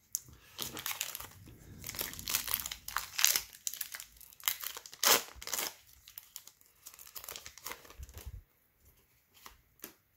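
Plastic trading-card pack wrapper crinkling and tearing as it is pulled open by hand, in uneven crackles for about eight seconds, then a couple of light taps near the end.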